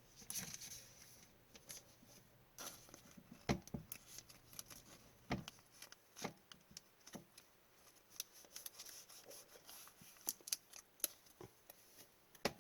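Hockey trading cards being handled on a table: faint rustling as cards slide over one another, and scattered light clicks and taps as cards are set down and squared up.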